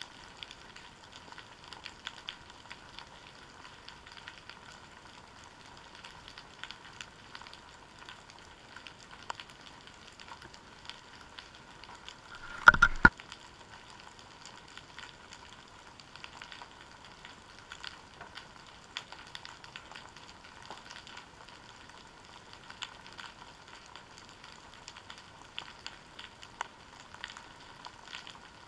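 Steady underwater crackle of countless tiny clicks, heard through a GoPro Hero 3's waterproof housing resting on the seabed. A little before halfway comes one loud, sharp double knock.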